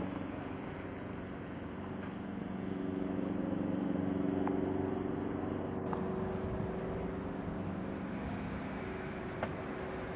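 Steady engine drone with several held low tones, swelling in loudness around the middle and easing off again.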